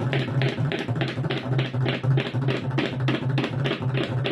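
Two pairs of tabla played in unison in a fast rela meant to evoke a horse's gait: rapid, even strokes on the treble drums over regular deep bass-drum strokes.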